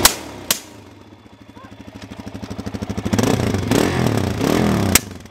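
Suzuki DR-Z supermoto's single-cylinder engine running and revving, with sharp backfire pops from the exhaust: one at the start, another half a second later, and two more near the end. The engine's pulsing note builds up over a couple of seconds in the middle.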